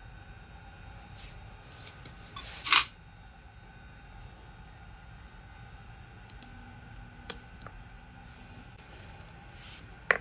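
A few light clicks and one short, sharp knock about three seconds in, over a steady low hum.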